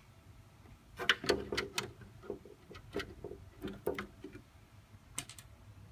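Irregular light clicks and knocks of small parts and tools being handled while an LCD TV is taken apart, some with a brief metallic ring.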